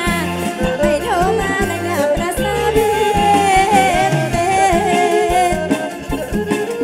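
Live kantrum folk music: a woman sings a wavering melody into a microphone over the band, with a regular drum beat.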